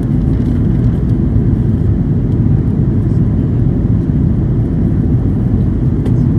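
Steady rumble of the Airbus A330-300's Rolls-Royce Trent 700 jet engines and rushing airflow, heard inside the passenger cabin in flight.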